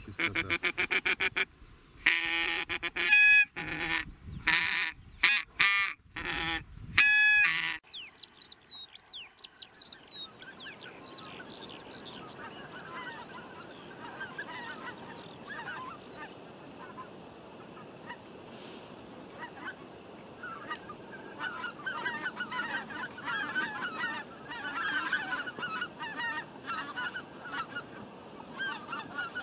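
Mouth-blown goose calls sounding loud and close for the first eight seconds: a fast rattle of clucks, then a series of honks. After that, a flock of wild geese calling in flight, a continuous chorus of many honks that thickens over the last ten seconds.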